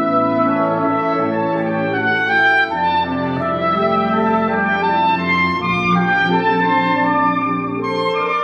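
Saxophone ensemble playing a slow passage of sustained, held chords, with a soprano saxophone carrying the solo line above. The low notes shift about three seconds in and again near six seconds.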